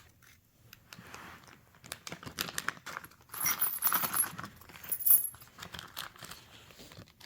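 A small bag of bolts and mounting hardware being opened and handled: loose metal pieces clicking and jangling together, with plastic crinkling, loudest about three to five seconds in.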